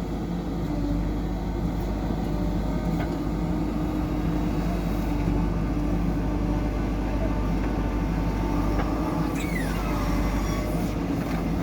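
Diesel engine of a JCB backhoe loader running steadily under work, with a brief falling whine about nine seconds in.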